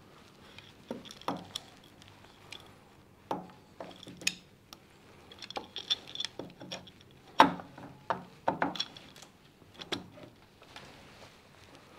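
Scattered light metallic clinks and knocks of engine parts and tools being handled while a scooter engine's top end is reassembled. The loudest knock comes a little past the middle.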